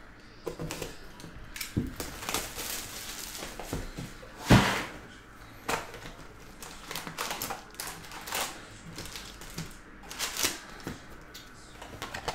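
Box cutter slicing the shrink wrap off a sealed trading-card hobby box, then the cardboard box opening and foil card packs rustling, tapping and clattering as they are pulled out and stacked. One sharp knock stands out about four and a half seconds in.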